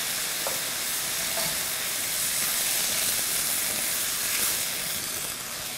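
Risotto rice sizzling and hissing in a hot skillet, just after a ladle of hot water has gone in, while it is stirred with a wooden spoon. The hiss is steady and eases off a little near the end.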